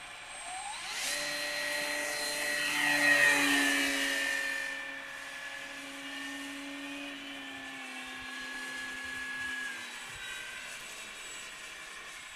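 Electric radio-controlled model Cessna's motor and propeller whining. The whine rises in pitch as the throttle opens for takeoff, is loudest about three seconds in as the plane passes with its pitch dropping, then fades as it climbs away.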